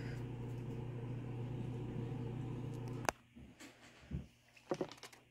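A steady low machine hum cuts off with a click about three seconds in. A few faint clicks and knocks follow.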